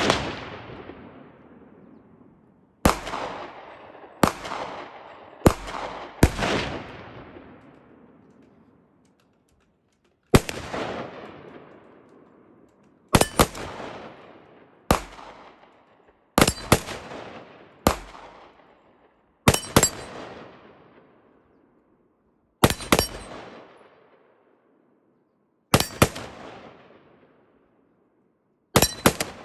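IWI Tavor X95 bullpup rifle firing, about fifteen shots at an uneven, deliberate pace with several quick double taps, each shot ringing out with a long fading echo.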